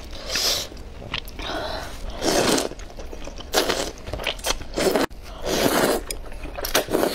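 Soupy noodles being slurped into the mouth in about six wet sucking bursts, with quieter chewing between them.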